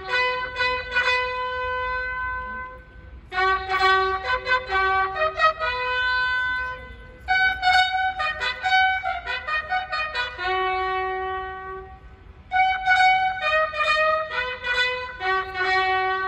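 A bugle call for the lowering of the flag, played as slow phrases of held notes a few seconds long with short breaks between them.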